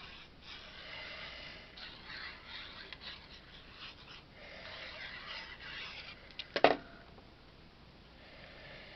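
Faint, uneven scratchy rustle of a plastic squeeze bottle's fine metal tip laying liquid glue along the edge of a cardstock panel, then one sharp tap about six and a half seconds in.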